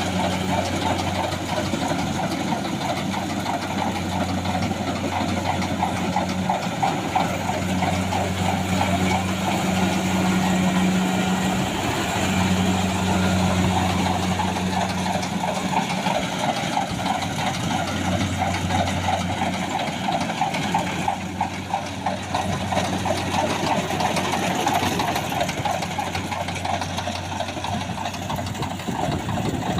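Kubota DC-70 Plus combine harvester's diesel engine running steadily under load, with a busy mechanical rattle from the machine over the hum.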